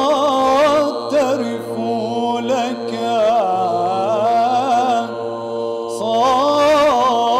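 Voices singing Byzantine chant: a steady held drone under an ornamented melody line that winds up and down. The melody drops lower about a second in and climbs again near the end.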